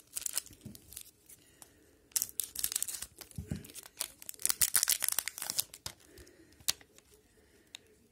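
Foil wrapper of a hockey card pack crinkling and tearing in several quick bursts, then a few light clicks of the cards being handled.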